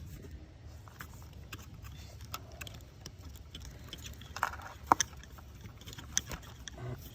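Faint, scattered small clicks and scrapes of a terminal pin-release tool being worked into a plastic ignition coil plug connector to free a wire terminal, with a few sharper ticks about four and a half to five seconds in.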